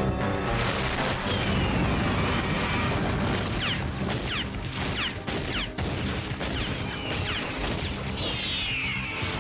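Action sound effects from an animated show: a constant rumbling din with crashes and booms. Over it come high falling shrieks, slower ones about a second in and near the end, and a run of quick short ones in the middle.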